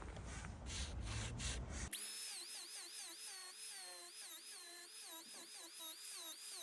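Sabertooth power-carving wheel grinding wood from a bench leg, a faint rasping scrape in a few regular strokes. About two seconds in it cuts off suddenly and faint music with a wavering high melody takes over.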